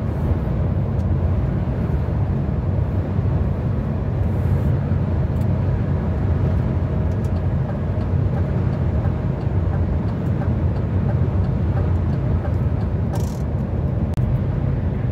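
Steady low drone of a lorry's engine and tyre noise heard inside the cab at motorway speed, with a few faint ticks.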